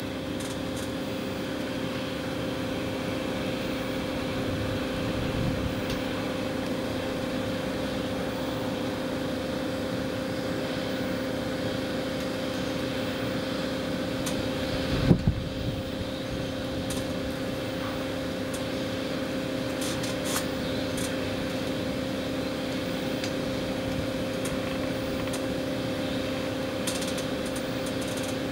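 A steady mechanical hum with a constant low drone that holds one pitch, broken once about halfway through by a short, loud knock.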